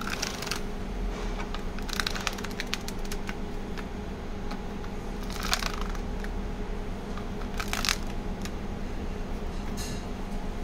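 A hand brushing and scraping loose powder across the perforated stainless steel capsule tray of a manual capsule filling machine, in short bursts every two seconds or so, over a steady low hum.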